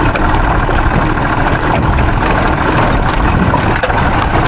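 Boat's outboard motor running steadily at low trolling speed.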